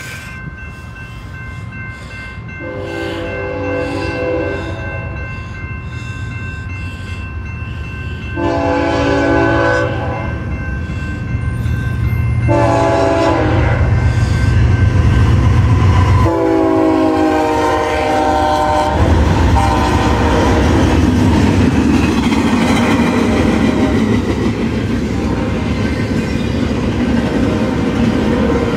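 BNSF freight locomotives blow their horn in the long, long, short, long grade-crossing pattern as they approach; the last blast drops in pitch as they pass. Engine rumble swells, then the double-stack intermodal cars roll by with steady wheel and rail noise.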